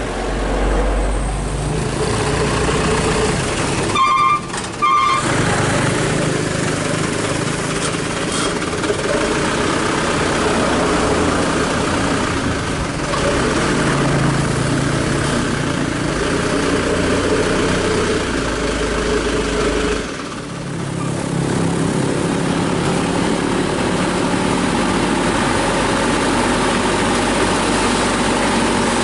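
Truck engine running steadily under way, its pitch shifting slightly as it drives. Two short horn beeps sound about four seconds in. About twenty seconds in, the engine note briefly drops away, then picks up again.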